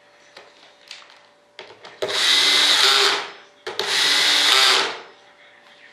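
Cordless drill running on the screws of a layup frame in two short runs of about a second each, with a few light handling clicks before them.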